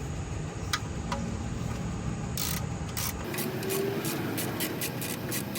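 Rubbing and scraping while working under a car, then a run of short, quick clicks from about three seconds in.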